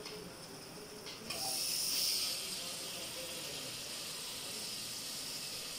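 Raw beef pieces sizzling as they drop into hot oil and fried spice paste in a pressure cooker. The sizzle jumps up suddenly about a second in, then settles to a steady hiss.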